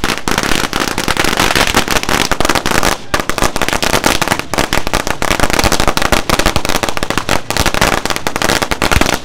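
Firecrackers going off on the ground in a rapid, continuous crackle of sharp bangs, with a brief break about three seconds in.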